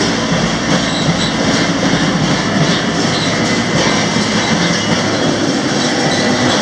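Freight train in motion, heard from the end platform of a hopper car: a loud, steady rumble and rattle of steel wheels on rail and the car's body.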